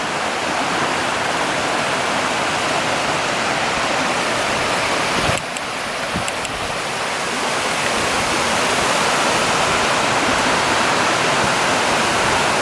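Rushing water of a mountain waterfall and its creek, a steady loud rush. About five seconds in there is a brief knock and a dip, and after that the rush grows louder.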